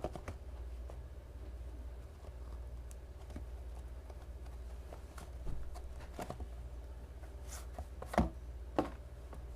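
Cardboard knife box being handled and opened: scattered taps and knocks, the loudest about eight seconds in, over a steady low hum.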